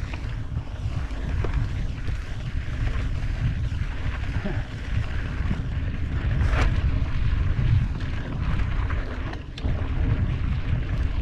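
Wind buffeting the microphone of a camera riding on a mountain bike, over the low rumble of knobby tyres on a bumpy dirt and grass track. A sharp knock from the bike about six and a half seconds in, and another near the end.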